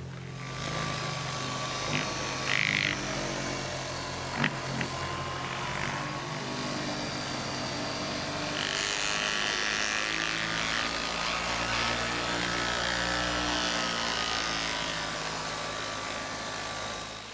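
Bosch random orbit sander with a foam polishing pad running against a fiberglass-resin-coated wooden paddle blade, buffing the cured resin to a shine. It makes a steady buzzing whine that wavers slightly under load, with a couple of brief knocks in the first five seconds.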